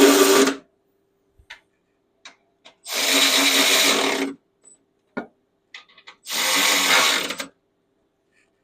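Cordless power driver spinning in three short bursts of about a second each, running bolts down; the first burst cuts off just after the start.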